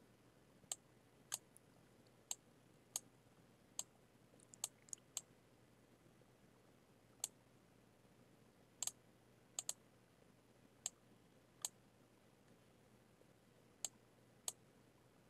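Computer mouse clicking: sharp single clicks at irregular intervals, with a couple of quick double clicks near the middle, over near-silent room tone.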